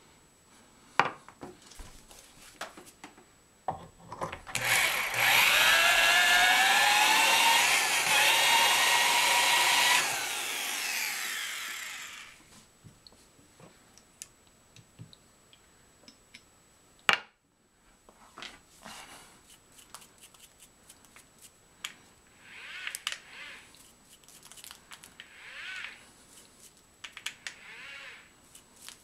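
Annular cutter trimming the steel muzzle of an AR-180B rifle barrel down to a threadable shank: a loud, shrill cutting whine that rises in pitch, holds for about five seconds, then trails off. A single sharp click follows some seconds later, then faint scraping and handling.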